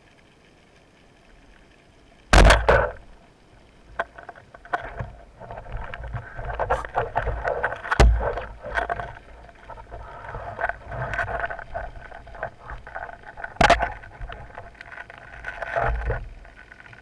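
Band-powered speargun firing underwater with a sharp crack and a deep thump about two seconds in, then a long run of clicking, scraping and knocking as the shooting line is hauled in by hand, with two more sharp knocks in the middle and later on.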